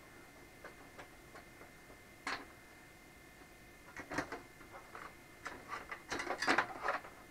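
Metal clicks and clatter of a drive cage being worked loose and lifted out of a computer case: a few light ticks, a sharper clack about two seconds in, then a busier run of rattling clicks over the last three seconds, loudest near the end.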